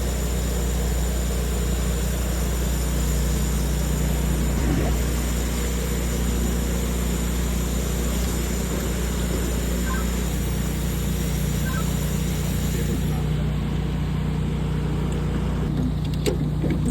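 An engine running steadily, a low even hum with noise over it. A faint high whine stops about thirteen seconds in, and a few clicks come near the end.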